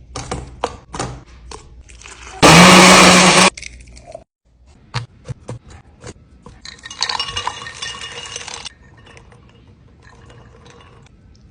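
Kitchen sounds of making a shake: a run of clinks and taps of utensils on glassware, a loud burst of about a second from a blender motor that starts and stops abruptly, and later about two seconds of liquid being poured.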